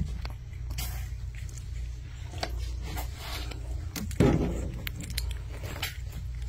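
Small rustles and clicks of very young corgi puppies squirming on carpet over a low steady hum. About four seconds in there is a louder bump from the phone being moved, followed by a short low sound.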